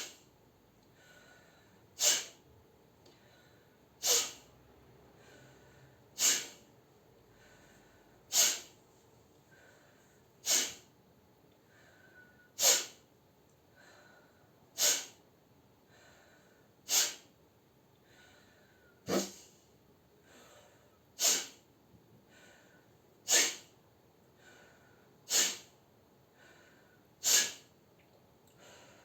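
Sharp, forceful exhales through the nose, like a held-back sneeze, repeated evenly about every two seconds, each preceded by a faint inhale through the mouth: the 'breathing-sneezing' exercise for clearing the nose and nasopharynx.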